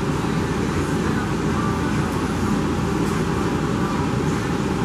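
Steady rushing hum of a room ventilation system.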